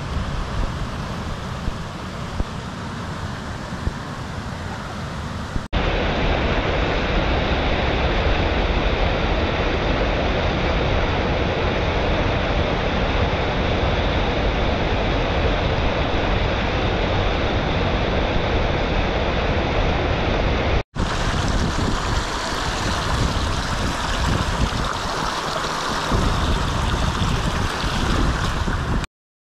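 Mountain stream rushing and splashing over rocks, a steady loud noise of running water, with gusts of wind on the microphone. The sound changes abruptly twice as the shots change, and it stops suddenly near the end.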